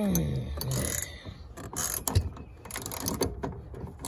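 Ratchet wrench clicking in short, irregular strokes as it turns out a metal mounting nut, with a short creak falling in pitch at the start.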